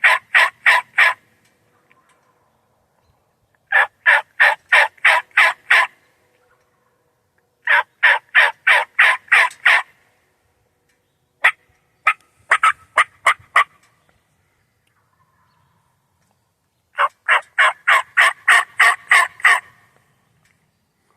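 Loud turkey yelping: runs of evenly spaced yelps, about four notes a second, each run about two seconds long, repeated several times with pauses of a few seconds between.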